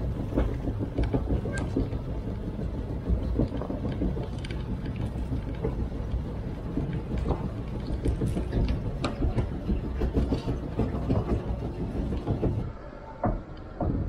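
Reel-type feed mixer wagon running while unloading feed: the spoked reel and augers turning, with a steady rumble and frequent metal clanks and rattles. About a second before the end it goes suddenly quieter, with a couple of knocks.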